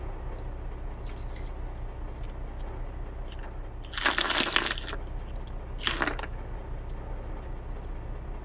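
Small stones and sand tipped out of a plastic toy dump truck's bed, spilling and clattering onto gravel about four seconds in, with a shorter spill about two seconds later.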